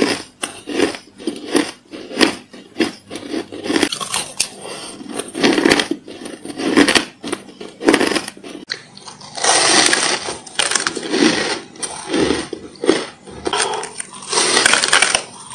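Close-miked crunching and chewing of crumbly white ice, a fast run of sharp crackles. After about nine seconds a denser run of crunching bites into a chunk of powder-coated ice.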